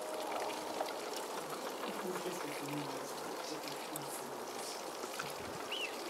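Steady trickling, rushing water noise, even throughout with no clear single events.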